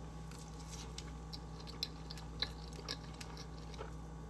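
A person chewing a mouthful of food, with faint, irregular mouth clicks.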